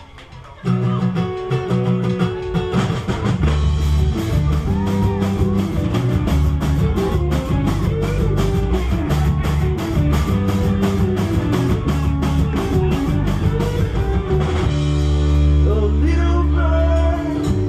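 A live rock band starting a song: the instruments come in sharply about a second in, and a steady drum beat joins about four seconds in.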